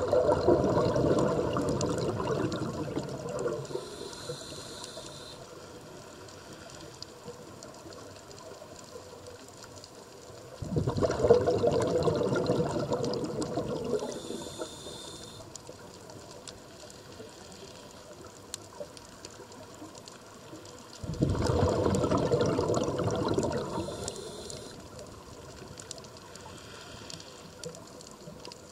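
A scuba diver's regulator underwater. Three exhalations come about ten seconds apart, each a loud rush of bubbles that fades over a few seconds, with a brief hiss of the inhalation between them. Faint clicks and crackle fill the gaps.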